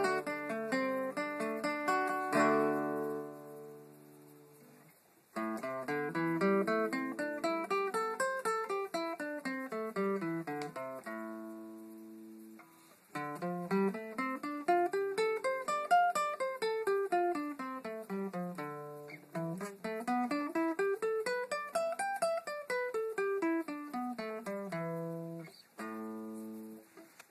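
Restored acoustic guitar played solo to show its tone. Chords ring out and fade, then fast arpeggiated runs climb and fall across the strings, with a couple of short pauses where the notes die away.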